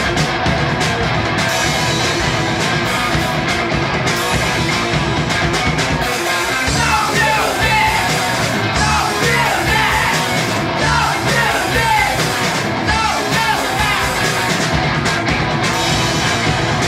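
Live punk rock band playing: distorted electric guitar, bass and drums, with the drums and cymbals coming in right at the start. A voice sings and yells over the band in the middle stretch.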